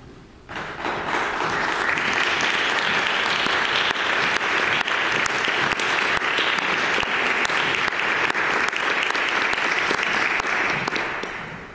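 Audience applauding, a dense patter of many hands clapping that starts about half a second in, holds steady and fades out near the end as the performer reaches the stand.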